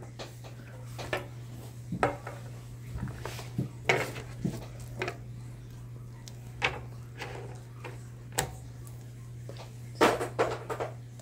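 Scattered light clicks and taps of small plastic toy figures and packaging being handled on a glass tabletop, with a steady low hum underneath.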